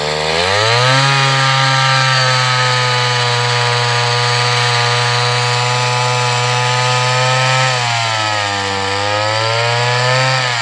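Gas-powered ice auger's engine revving up and running at high speed as the auger drills down through lake ice. The engine note sags about eight seconds in, then picks back up.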